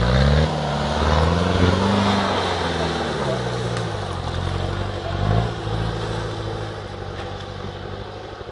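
1986 Land Rover 110's diesel engine pulling the vehicle through mud, its revs rising and falling, with a short burst of revs about five seconds in. It grows fainter as the vehicle moves away.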